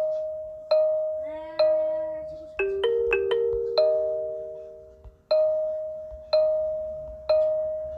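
Kalimba plucked note by note, playing a slow chime-like melody. Each note rings out and fades, several fall on the same repeated pitch, and a quick run of four notes comes about three seconds in.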